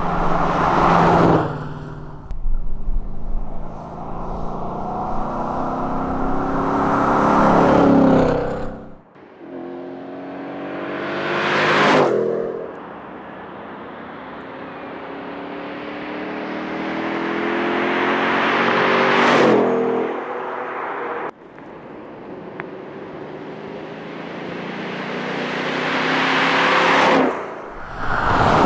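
Ford Mustang Dark Horse's 5.0-litre V8 exhaust in repeated hard pulls. The engine pitch climbs steadily for several seconds to a peak, then drops off sharply, about four times over.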